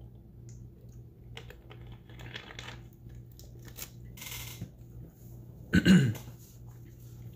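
A person taking a drink: small clicks and handling noises, a brief hiss about four seconds in, then a short, loud throaty sound with falling pitch about six seconds in, the loudest thing here.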